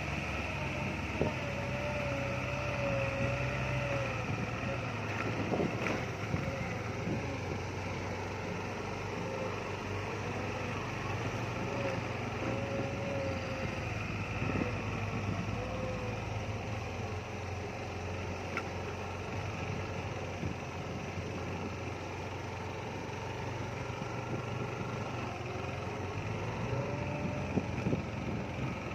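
Vehicle engine running steadily at low speed, its pitch wavering slightly up and down, with a few short knocks and rattles as it bumps along a rutted dirt track.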